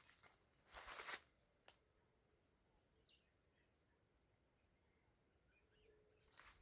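Near-silent outdoor ambience with a few faint bird chirps, and one brief rush of noise about a second in.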